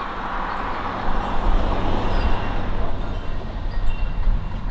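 Gusty wind buffeting the microphone ahead of a tropical storm: a rushing noise over a low rumble that rises and falls with the gusts, getting stronger about a second in.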